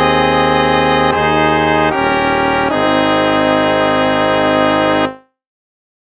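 Instrumental hymn music: a few sustained chords moving step by step into a long held final chord, which dies away just after five seconds in, then silence.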